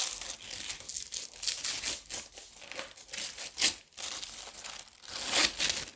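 Wrapping on a diamond painting kit being pulled off and unwrapped by hand: irregular crinkling and rustling, with louder crackles about three and a half seconds in and near the end.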